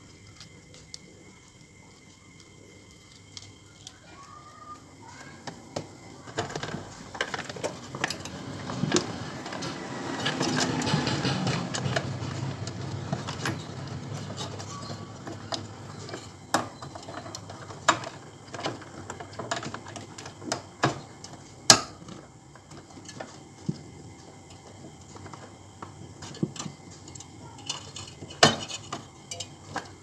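Hands handling wires and small plastic connectors while fitting a refrigerator's defrost bimetal thermostat and thermal fuse: rustling with scattered sharp clicks, busiest about ten seconds in.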